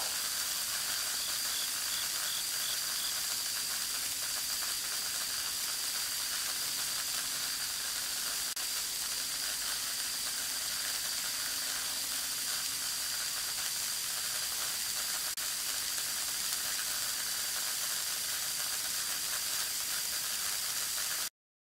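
Steady electrical hiss, a 'jee-jee' buzz, from the high-voltage lines and insulators of a steel transmission tower, with a thin steady high tone under it; it cuts off abruptly near the end. The uploader takes it to be corona discharge rather than sparking from salt left on the insulators by a typhoon.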